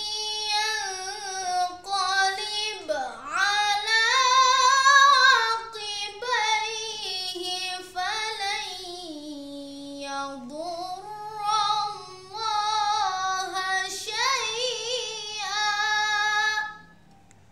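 A boy reciting the Quran in melodic, chanted style (tilawah). He sings long, ornamented phrases whose pitch slides and wavers, with brief breaths between them, and falls silent near the end.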